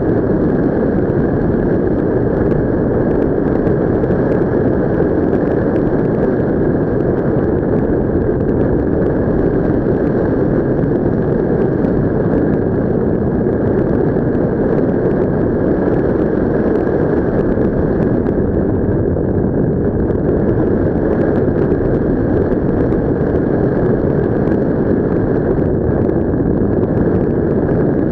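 Steady rushing wind on the microphone during paraglider flight: airflow noise, even and unbroken throughout.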